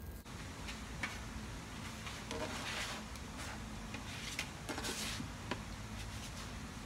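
Spatula scraping and tapping on an electric grill's nonstick plate as slices of French toast are lifted off and set on a plate: scattered light clicks and taps with two short scrapes.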